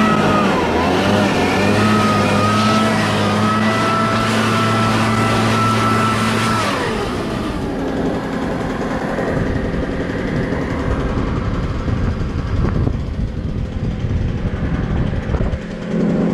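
Cifarelli backpack mist-blower's small two-stroke engine running at high throttle with a steady high whine, blasting air to clear a clogged tractor radiator screen. About seven seconds in, the revs drop and the pitch falls, leaving a lower, rougher engine note and the rush of air.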